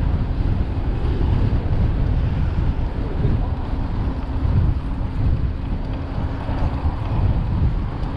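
Steady wind rumble buffeting the microphone of a camera on a moving bicycle, with a faint steady hum underneath.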